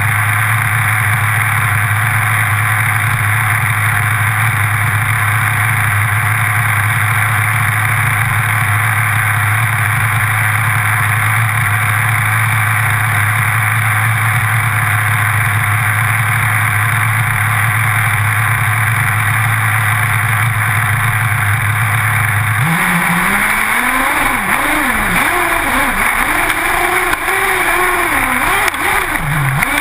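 Small single-cylinder two-stroke engine of a radio-controlled car, heard from a camera mounted on the car. It idles steadily, then in the last few seconds it revs up and down as the car drives off.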